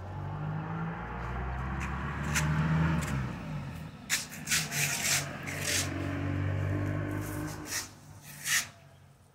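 A low, steady hum, with a run of short brushing and rubbing noises right at the microphone through the middle. The hum fades near the end.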